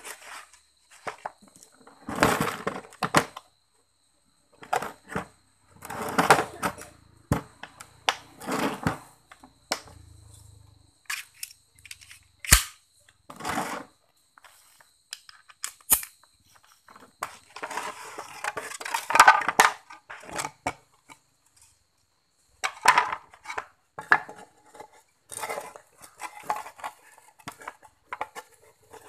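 Plywood offcuts being handled, slid and knocked together on a concrete floor, in irregular bursts of scraping and clattering, with two sharp clicks about halfway through.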